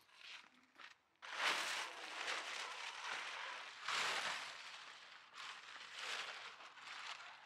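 Plastic tarp crinkling and rustling as it is shaken out and spread over gravel, starting about a second in and coming in several swelling surges.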